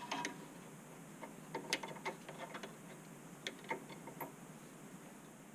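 Light metallic clicks and scrapes of a steel vernier caliper being slid and seated against the rim of a steel pipe to measure its wall thickness. The clicks come irregularly, a few at a time.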